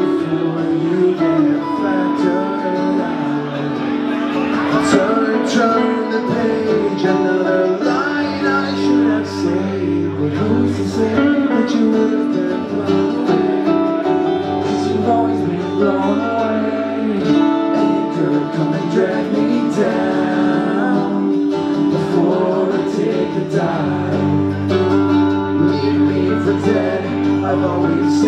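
Live acoustic pop-punk song: a semi-hollow electric guitar and an acoustic guitar strummed together, with a man singing over them.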